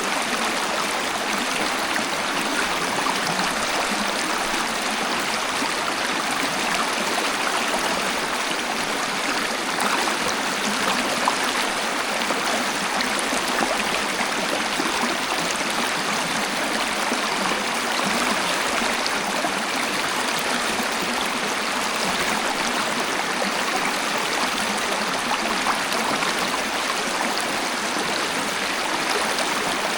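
Steady rush of falling and flowing water from a waterfall, an even splashing hiss with fine droplet patter and no breaks.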